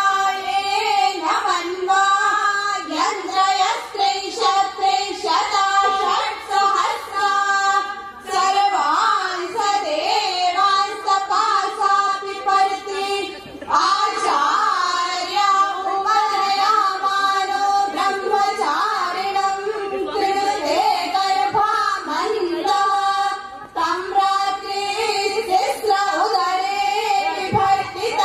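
High female singing of a flowing melody, held notes with slight wavering, with brief breaths between phrases about 8, 14 and 24 seconds in.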